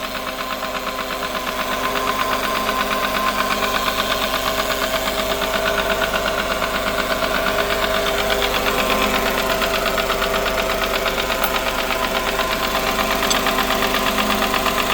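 Smart ForFour engine running with a steady, fast, rhythmic knock from inside the engine, a knock bad enough that a new engine is recommended.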